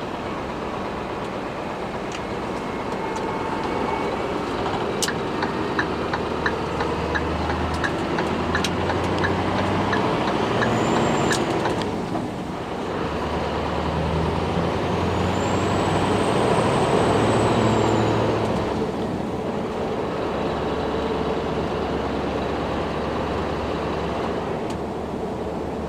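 Scania R620's V8 diesel engine with its stock exhaust, running under load and building twice, with short dips between that fit gear changes. A high whistle rises and falls midway through, and regular ticking, about two a second, runs for several seconds in the first half.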